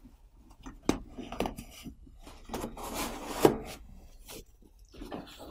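Unboxing handling noise: a few knocks and the rustle of a bag and packaging as a Blu-ray player in its black shopping bag is lifted out of its box. Two knocks about a second in, a longer rustle around three seconds in ending in a sharp thump, and another knock near the end.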